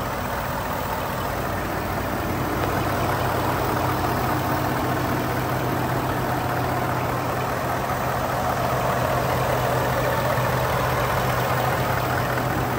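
The 2018 Ford F-150's 5.0L V8 idling steadily under the open hood.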